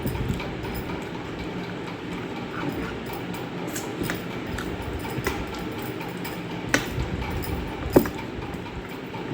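Eating sounds: chewing and mouth noises with small irregular ticks, and two sharp clicks, one about seven seconds in and one about a second later.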